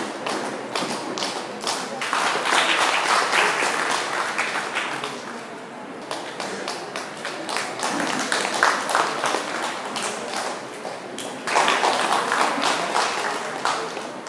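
Audience clapping: a steady run of claps, swelling into louder applause about two seconds in and again near the end.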